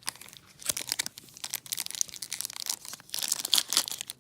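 Crinkly foil wrapper of a Topps Chrome trading-card pack crinkling and tearing in the hands, busier and louder from about three seconds in.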